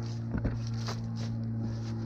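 Footsteps on a leaf-covered metal grate footbridge, several steps about every half second, over a steady low hum.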